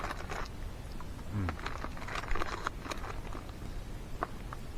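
Irregular crunches and crackles of honey mustard and onion pretzel pieces being chewed, with a brief hum of voice about a second and a half in.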